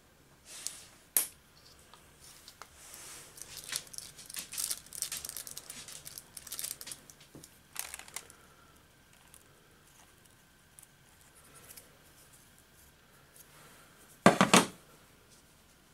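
Hands handling a sheet of crinkly paper while dispensing and stirring two-part epoxy with a wooden stick: rustling, scraping and small clicks, with a sharp click about a second in and a louder, brief crinkling clatter near the end.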